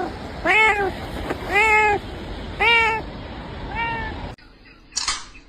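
A cat meowing over and over, about one meow a second, each call rising and then falling in pitch. The meows stop abruptly about four seconds in, and a brief burst of noise follows near the end.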